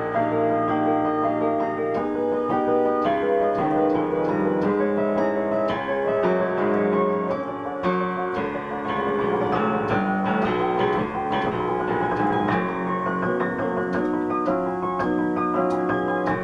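Yamaha CP-80 electric grand piano played continuously: struck chords and melody notes in quick succession, testing the freshly lubricated and reassembled action.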